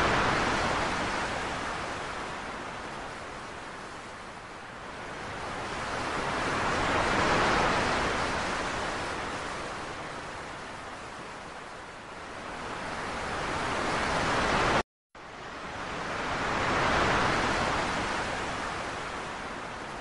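Ocean surf: waves breaking and washing, the rushing noise swelling and fading in slow surges about every ten seconds. The sound cuts out for an instant about three-quarters of the way through.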